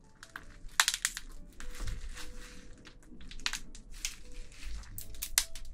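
Spicy-marinated raw crab (yangnyeom gejang) squeezed and pulled apart in gloved hands: the shell cracks and crunches in irregular sharp snaps through the sticky sauce, the loudest about a second in and again near the end.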